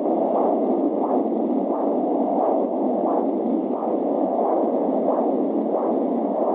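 AngelSounds fetal doppler picking up blood flow in an unborn baby's umbilical cord: a rhythmic whooshing pulse, about two beats a second, in a steady hiss.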